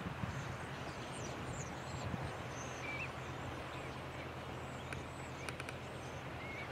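Steady shoreline noise of surf and wind, with a low rumble, and a few faint, short, high bird chirps in the first half and near the end. Several faint ticks come about five seconds in.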